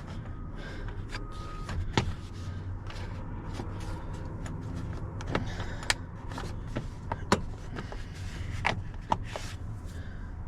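Plastic lower steering-column trim cover of a Chevy Silverado being tugged and worked by hand: scattered sharp plastic clicks and knocks as its hooked clips hold, over a steady low hum.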